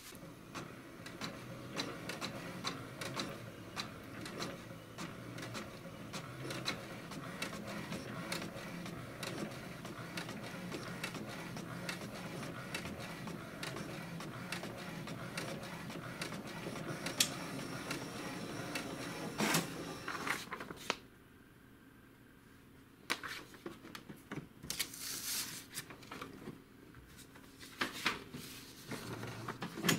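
HP DeskJet 2130 inkjet printer printing a test page: the print carriage runs back and forth as the paper feeds, with many small clicks, for about twenty seconds before stopping. Scattered clicks and a brief rustle follow, as of the printed sheet being handled.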